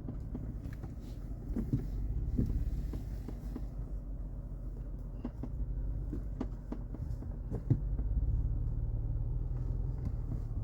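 Off-road vehicle's engine running with a steady low rumble as it drives a tight wooded trail, with scattered sharp knocks and clicks, about a dozen over the stretch.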